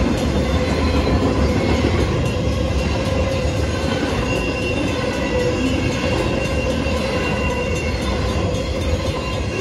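BNSF intermodal freight train, flatcars loaded with highway trailers, rolling steadily past: a continuous rumble of wheels on rail, with thin steady ringing tones over it.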